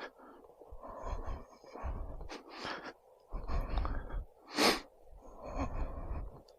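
A person breathing audibly close to the microphone: a run of short breaths about a second apart, with one sharper, louder breath a little after the middle.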